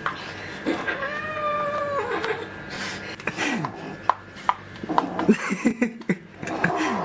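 Black-and-white kitten yowling: one long drawn-out call about a second in that drops at the end, then a shorter falling call. Sharp clicks and taps follow in the second half.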